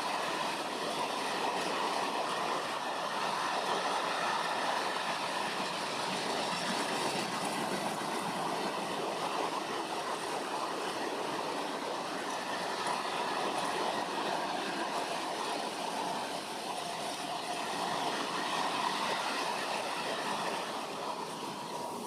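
A train running on the track, a steady rolling rail noise.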